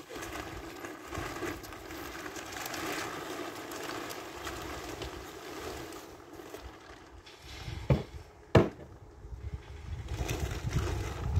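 A steady engine drone runs throughout, and two sharp knocks land close together about eight seconds in.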